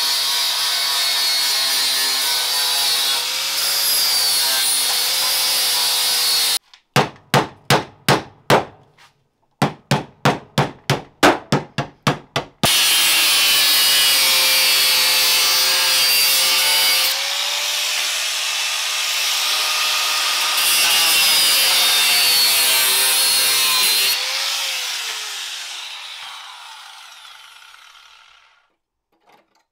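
Corded angle grinder cutting through the sheet-metal door and wheel-arch panel of a Land Rover Discovery 2. Its motor whine dips and rises as the disc bites. In the middle the cutting gives way to two short runs of sharp rhythmic strokes, about three or four a second, with silence between them. Then the grinder cuts again, and near the end it winds down and stops.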